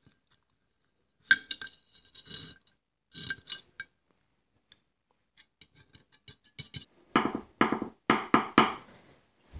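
Small metal carburetor parts clicking and clinking as they are handled and set down on a table, some with a light ringing note. A few louder handling noises come near the end.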